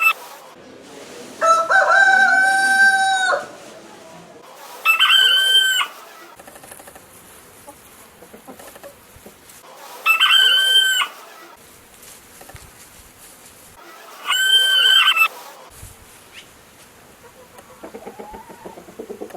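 Rooster crowing sound effect: four loud, held calls spaced several seconds apart, the first lower-pitched and about two seconds long, the other three higher and about a second each.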